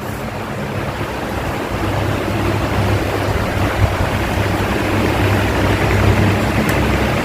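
Electric fan running: a steady rush of air from the blades with a low motor hum, growing a little louder over the first few seconds.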